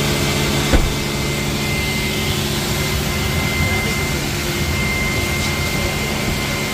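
Commercial wet-and-dry vacuum cleaner running steadily, with a high whine over a low hum, its hose vacuuming the rear footwell carpet of a car. A brief knock sounds about a second in.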